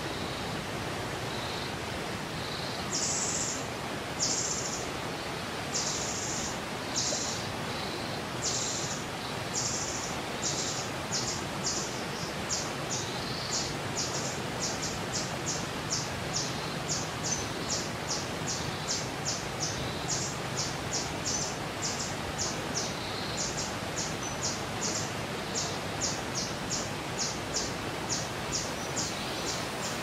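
Short, high-pitched calls from an unseen animal, beginning about three seconds in at roughly one a second and quickening to two or three a second, over a steady outdoor hiss.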